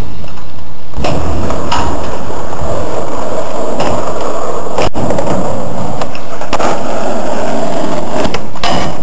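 Skateboard rolling across the skatepark with a steady, loud wheel rumble, broken by several sharp clacks of the board hitting the ground. The sharpest clack comes about five seconds in.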